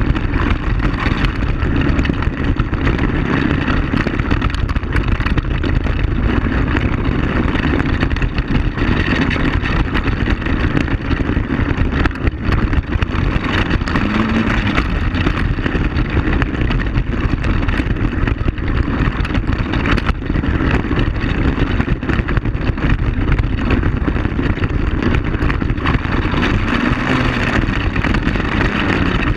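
ATV (quad bike) engine running steadily as it rides along a gravel dirt track, with constant road noise and small rattles from the rough surface.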